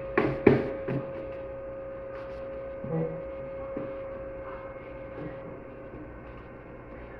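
A steady electrical hum, with a few sharp knocks and clatters near the start and another about three seconds in, as car-audio equipment is handled and taken out.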